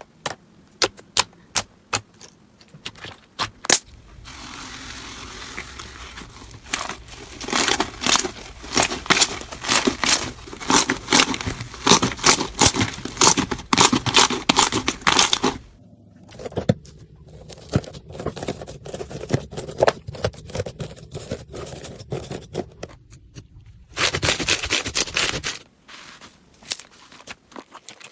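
Slime being played with: a string of sharp clicks and pops at first, then a long run of dense crackling. The crackling breaks off briefly about halfway and comes back, with a short burst of hiss near the end.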